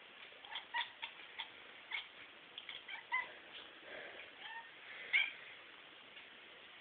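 A domestic cat close to the microphone making a series of short chirps and brief meows, mixed with clicks and taps; the loudest call comes about five seconds in.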